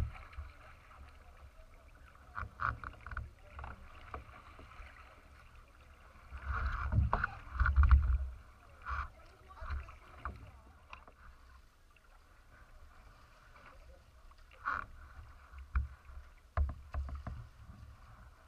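Water slapping and splashing against a racing kayak's hull as it glides, with paddle splashes and drips coming at irregular moments. A low rumble swells up loudest about seven to eight seconds in.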